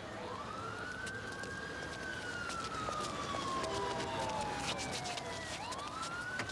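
Police car siren wailing: the pitch rises quickly, falls slowly over about five seconds, then rises again near the end. Scattered sharp clicks and knocks run through it.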